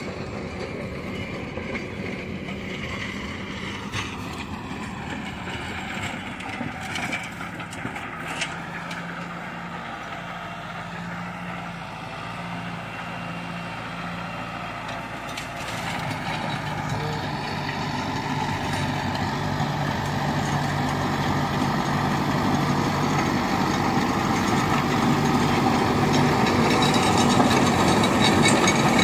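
Kubota MU5501 tractor's four-cylinder diesel engine running steadily under load while pulling a 7 ft rotavator through the soil. It grows steadily louder over the second half as the tractor draws close.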